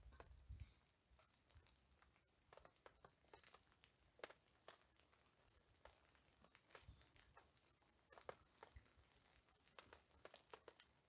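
Near silence with faint, scattered small clicks and rustles, one slightly sharper click about eight seconds in, over a faint steady high hiss.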